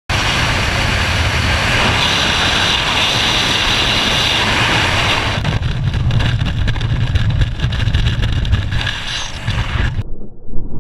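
Freefall airflow rushing over a helmet camera's microphone, a loud steady rush that turns lower and gustier about five seconds in. Just after ten seconds, as the parachute deploys, it cuts abruptly to a muffled, gusty buffeting.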